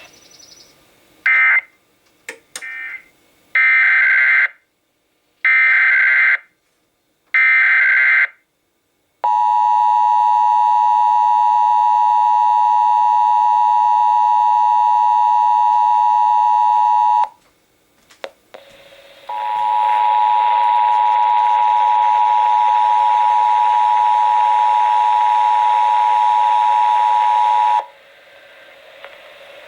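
Emergency Alert System test signal: a run of short, harsh, screeching digital header bursts about a second apart. Then comes the steady two-tone EAS attention signal, held about eight seconds. After a brief pause a second long steady alert tone sounds for about eight seconds with static hiss behind it.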